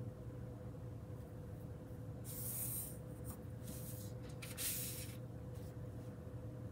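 Pencil and plastic ruler on heavy paper: a few short scratchy strokes, about two and a half and five seconds in, as lines are drawn and the ruler is shifted across the sheet, over a steady faint hum.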